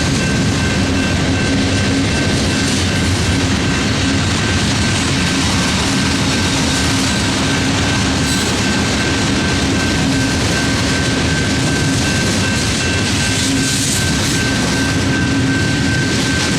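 Freight cars of a long Union Pacific train rolling past a grade crossing: a steady, loud rumble and rattle of wheels on the rails, with a steady high-pitched tone held through it.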